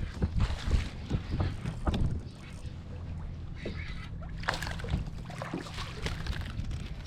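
Knocks and thumps of gear being handled on a kayak for about the first two and a half seconds, then a steady low hum with a few scattered clicks.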